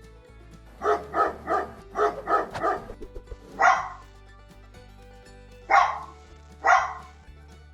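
A dog barking: two quick runs of three barks, then three single, longer barks spaced a second or two apart, over faint background music.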